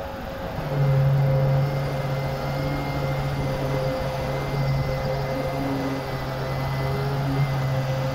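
Pneumatic random orbital sander running on a car bonnet, sanding down the clear coat: a steady hum with a faint high whine, growing stronger about a second in.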